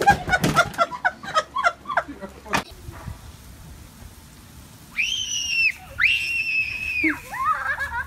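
High-pitched human shrieking: a rush of quick yelps at the start, then two long shrill screams about five and six seconds in, each held for about a second and dropping at the end.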